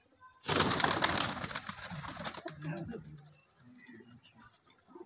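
A flock of domestic pigeons: a sudden loud clatter of wingbeats about half a second in that fades over about two seconds, then pigeons cooing.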